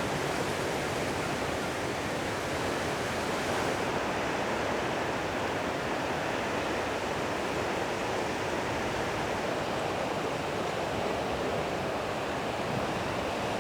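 Steady rushing of water, an even hiss that holds level throughout with no separate splashes or other events.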